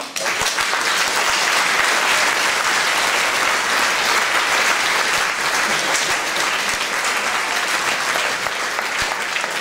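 An audience applauding: the clapping breaks out all at once and keeps up steadily.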